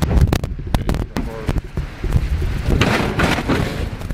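Heavy metal barrel smoker being pushed into a pickup truck bed: a run of knocks and thuds over a low rumble, then a rougher scraping stretch a little before the end.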